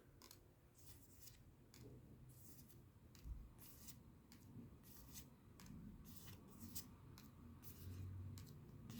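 Faint handling of trading cards: a string of short, irregular papery slides and rustles, one or two a second, as cards are flipped through.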